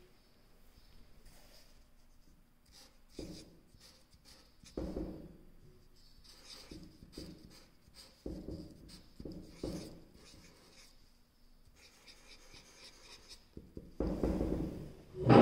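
Chisel-tip marker pen writing letters on paper: a series of short, separate scratching strokes, with a louder patch of handling noise near the end.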